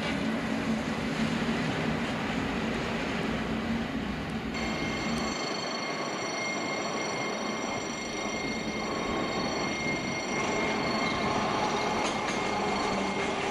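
A train running on its track, a steady noise of wheels and rails. About four and a half seconds in the sound changes abruptly: the low rumble fades and several steady high-pitched tones come in.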